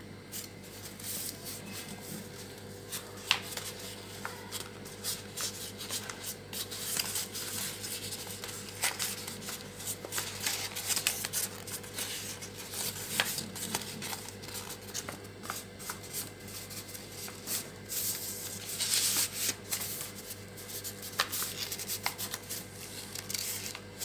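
Gift-wrapping paper being folded and creased by hand: irregular crackling and rustling of the paper, busier near the end.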